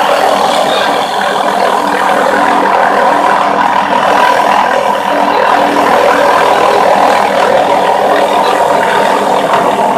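Tree-trimming helicopter hovering with its suspended air saw spinning: a loud, steady mechanical whir.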